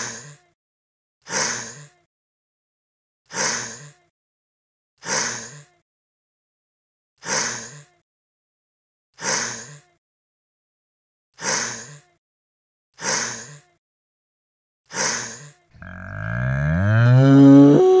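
A lizard digging in sand, making short scratchy scrapes about every one to two seconds, nine in all. Near the end a cow gives a long moo that grows louder and drops in pitch as it ends.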